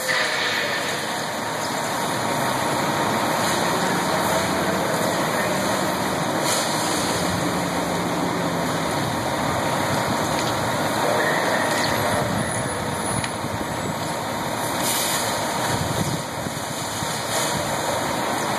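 Fire truck's diesel engine running steadily at the fire scene, with a constant rushing hiss over it.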